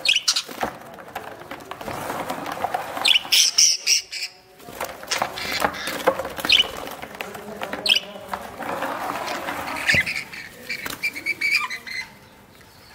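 Young budgerigars chirping and squawking in short bursts, a cluster a few seconds in and a run of chirps near the end, over rustling, wing flutter and handling noise as the birds are held in a plastic tub.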